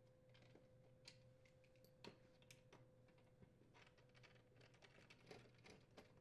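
Near silence, with faint scattered clicks and ticks of a Phillips screwdriver on the screws and plastic parts of a refrigerator's ice dispenser chute assembly, over a faint steady hum.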